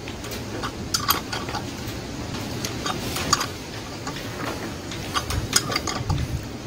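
Irregular light metal clicks and ticks from a special hand tool being turned on a Honda GX35 engine's cylinder head, easing a new rocker arm into place a little at a time.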